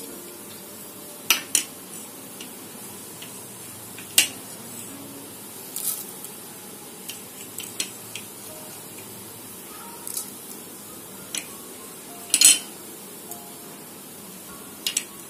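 Mustard and cumin seeds heating in oil in a kadai: scattered sharp pops as the mustard seeds begin to splutter, over a faint steady sizzle. One pop about three-quarters of the way through is much louder than the rest.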